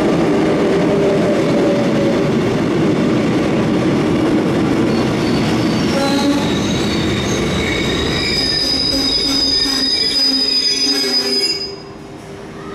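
Cercanías Madrid commuter train running through the station with a loud, steady rumble. From about halfway in, a high-pitched metallic squeal of several held tones builds, and it all cuts off sharply near the end.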